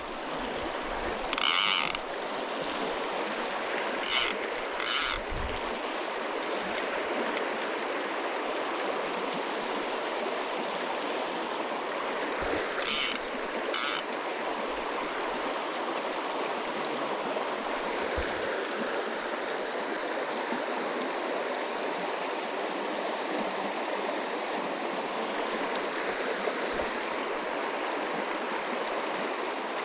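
Mountain stream rushing steadily, with short bursts of rapid clicking from a fly reel's click-and-pawl drag as line is pulled off: once about a second and a half in, twice around four to five seconds, and twice near the middle.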